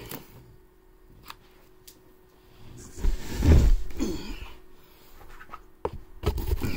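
Handling noise from a heavy cardboard board-game box and its contents being shifted: scrapes and rustles, a few sharp knocks, and a louder stretch of bumping about three seconds in.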